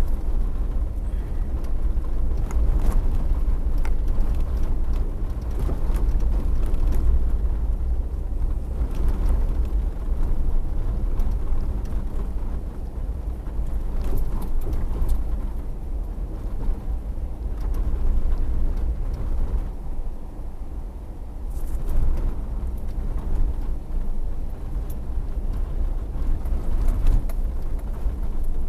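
A car driving along the road, heard from inside: a steady low rumble of engine and tyre noise that swells and eases a little.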